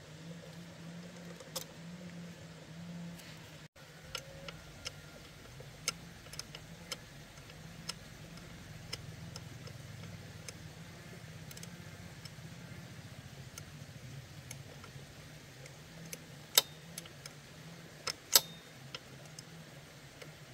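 Scattered light clicks and taps over a steady low hum, with a few sharper, louder clicks near the end.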